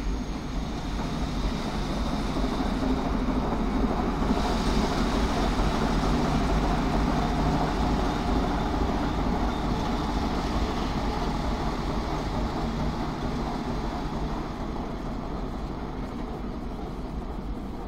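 A diesel locomotive coupled to a Stadler Flirt 3 train passes slowly, its engine running under wheel-on-rail noise. The sound swells as the locomotive goes by and fades as it moves away.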